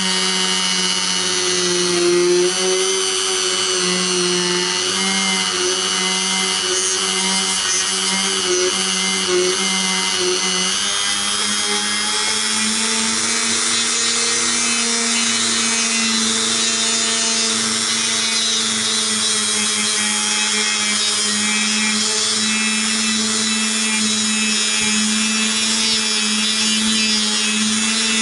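Dremel rotary tool running steadily at high speed with a polishing point working inside a 1911 .45 barrel's throat and chamber. Its motor pitch wavers a little at first, then rises slightly and holds steady from about eleven seconds in.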